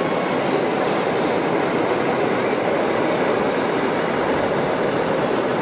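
Steady din of a crowded exhibition hall, an even noisy hum with no single sound standing out, with radio-controlled model vehicles at work on a dirt layout.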